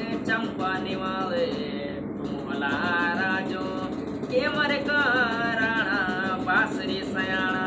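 A man singing unaccompanied, holding long notes with a wavering vibrato, with short pauses between phrases.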